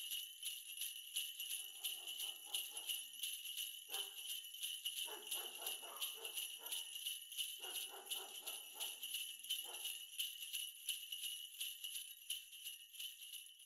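Sleigh bells jingling, shaken steadily and continuously, with softer, lower sounds coming and going underneath.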